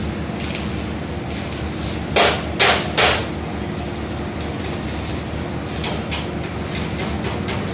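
Three quick metal strikes about two seconds in, hammer blows on a steel bed frame, over steady workshop noise, with a couple of lighter taps later.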